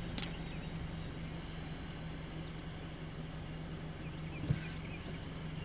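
Car engine idling steadily, heard from inside the cab with the side window down. A sharp click comes about a quarter second in, and a low knock about four and a half seconds in, followed by a short high chirp.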